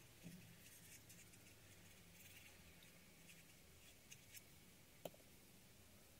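Near silence: faint rustling and light taps of paper pieces being handled and glued by hand, with one small sharp click about five seconds in.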